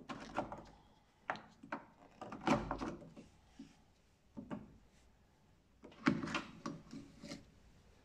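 Plastic clicks, knocks and rattles of a VW Polo's exterior door handle being pulled out and worked free of the door, coming in several bursts, the loudest about two and a half seconds in and another run near the end.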